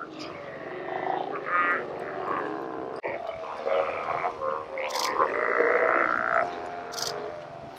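A group of Steller sea lions calling from the water, several voices overlapping.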